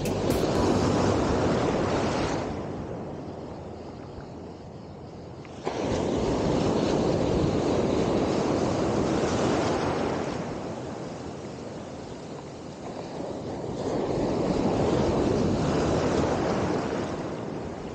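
Surf washing onto the shore, rising and falling in three swells, with one wave arriving suddenly about six seconds in.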